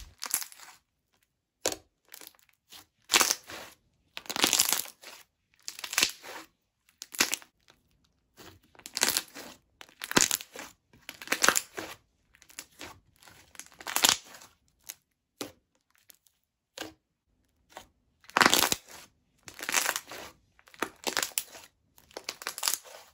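Jelly slime with small foam beads being squished and pressed by hand, giving sticky squelches and bubble pops in short, irregular bursts with brief gaps between them.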